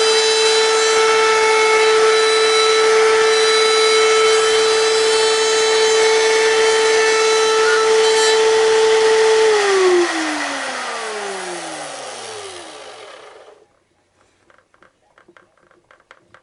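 Router motor running at full speed with a steady high whine, then switched off about nine and a half seconds in, its pitch falling as it spins down to a stop over about four seconds. A few faint knocks follow.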